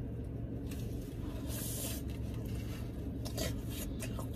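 Soft eating sounds, chewing and loaded nachos being pulled from a foil tray, with a few brief rustles and scrapes. A steady low hum of the car cabin runs underneath.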